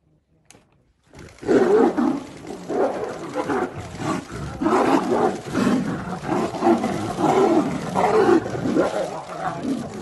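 Two tigers fighting, growling and roaring in repeated loud bursts that begin about a second in.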